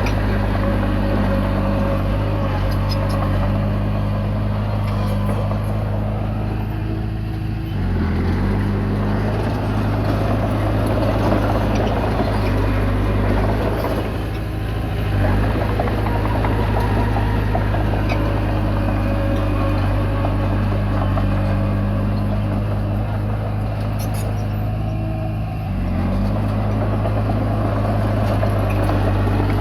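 Komatsu D20P bulldozer's diesel engine running steadily under load while pushing soil, its note dipping briefly three times before picking up again.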